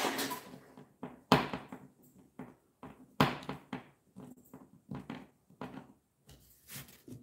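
A screw being driven by hand with a screwdriver into soft pine without a pilot hole: a series of short, irregular knocks and creaks as the screwdriver is turned and pressed down. The loudest are about a second and about three seconds in.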